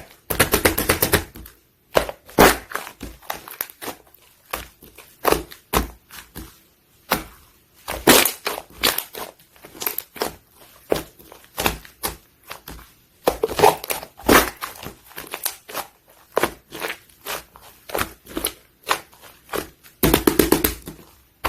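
Slime being squished and pressed by hand, making irregular clusters of wet crackles, clicks and pops with short pauses between.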